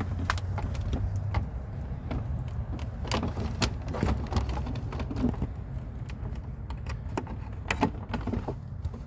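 Irregular clicks and knocks of car body parts being handled, over a low rumble.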